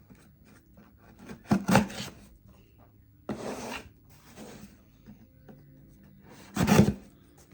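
An Amazon shipping package being handled and opened by hand: three short rustling, rubbing bursts of packaging, the last one the loudest.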